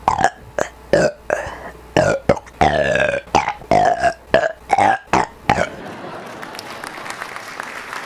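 A man burping in a rapid string of short, loud burps, roughly three a second, which stops a little under six seconds in. A steady wash of noise like applause follows.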